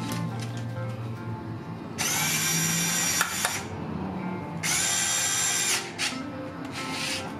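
Small cordless electric screwdriver running in two short bursts, each a steady whine of about a second and a half, as it turns a screw on a bicycle fitting.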